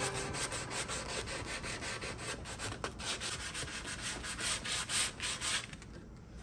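Sanding sponge rubbed by hand back and forth along a wooden bookcase base, about four quick scratchy strokes a second, stopping near the end. The old finish has been stripped with lacquer thinner, and this sanding takes out scuffs before shellac goes back on.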